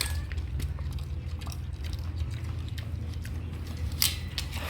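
A farm animal chewing feed, with scattered small crunching clicks over a steady low rumble and a sharper click about four seconds in.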